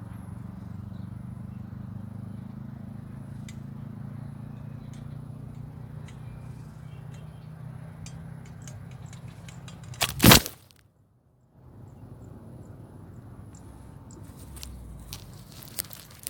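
The camera falling over: a single loud knock about ten seconds in, then about a second of dead silence before the sound comes back. Before it, a steady low rumble with scattered small clicks.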